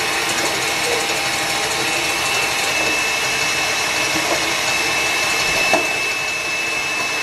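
Electric stand mixer running steadily at speed, its motor giving a constant whine as the beater whips thick egg yolks in a steel bowl. There is a light knock about three-quarters of the way through.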